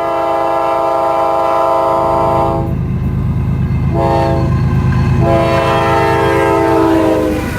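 Diesel locomotive's multi-chime air horn sounding a long blast, a short blast and another long blast, over the low rumble of the train drawing nearer.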